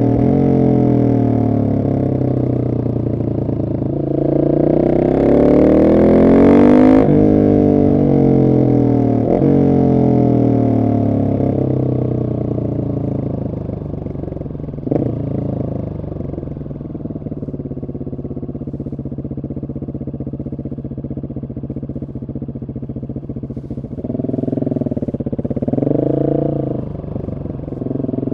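Husqvarna 701 SM single-cylinder engine through a de-catted Arrow exhaust, pulling hard with rising revs about four to seven seconds in, then running lower and steadier. A sharp click comes about halfway, and there are a couple of quick rev rises near the end.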